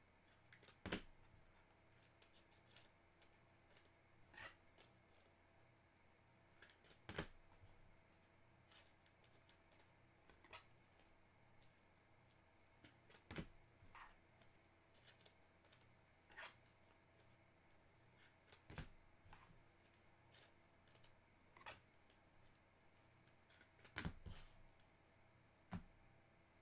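Near silence, with sparse faint clicks and taps of trading cards being handled. The sharpest taps come about a second in, around seven and thirteen seconds in, and near the end.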